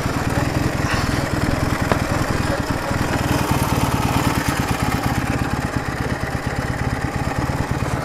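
Ural sidecar motorcycle's air-cooled flat-twin engine running steadily under way, a rapid, even beat of firing pulses.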